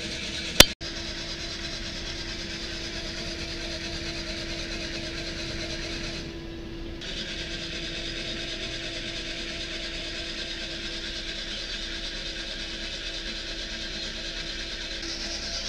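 Heat gun blowing steadily into a bread-machine coffee roaster, a constant fan hum and hiss with the beans churning in the pan during the roast. A single sharp click about half a second in.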